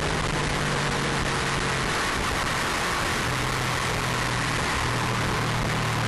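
Steady wind and road noise over a car-mounted camera at track speed, with the Subaru Impreza RA's turbocharged flat-four engine running faintly underneath through a stainless exhaust; its note steps down a little about two seconds in.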